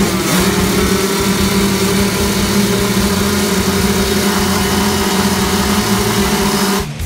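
Motocross bike engines held at steady high revs on the start line, a loud constant buzz that cuts off abruptly near the end.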